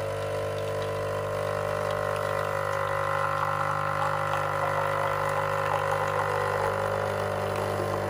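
Nescafé Dolce Gusto pod machine's pump buzzing steadily while it brews a milk pod, a thin stream pouring into a mug.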